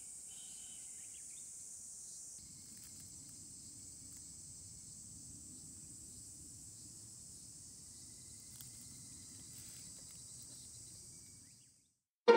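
Steady high-pitched insect chorus, with a faint low rumble joining about two seconds in; it fades out near the end.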